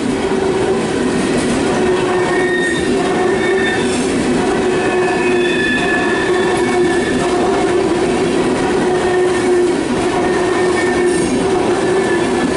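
Empty tank cars of a freight oil train rolling past at a steady loud level, their steel wheels squealing on the rails in drawn-out tones that come and go over the running noise.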